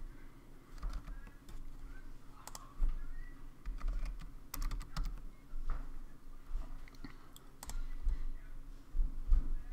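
Computer keyboard keystrokes, pressed one at a time at an uneven pace, as a short numeric verification code is typed in.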